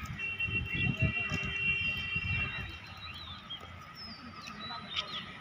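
Open-air ambience. A low rumble and a high steady tone run for about the first two and a half seconds, followed by faint high chirps over a faint steady background hum.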